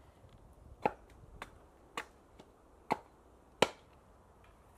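Five sharp knocks of wood being struck, unevenly spaced about half a second to a second apart, the last one the loudest.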